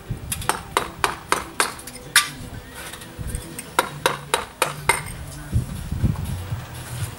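Stonemason's round mallet striking a steel chisel to cut out sandstone: a run of sharp taps, three or four a second, then a pause of about a second and a half, then another quick run of blows. A low hum sits underneath in the second half.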